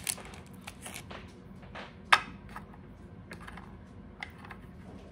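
Scattered light clicks and taps of a chocolate bar and graham crackers being handled on a ceramic plate, with one sharp click about two seconds in.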